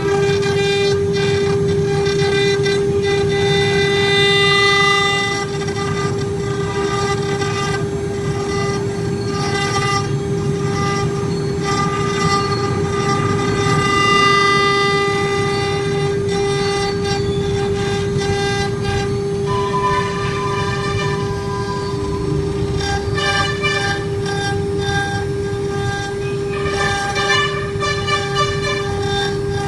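3-axis CNC router running, with a steady high spindle whine over rough cutting noise that changes as the tool moves.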